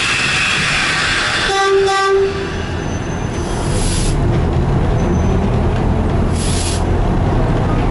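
A hiss for the first two seconds, then a short blast on the Class 03 shunter's horn. Its Gardner eight-cylinder diesel engine then runs with a steady low rumble, growing a little stronger from about four seconds in as the locomotive pulls away.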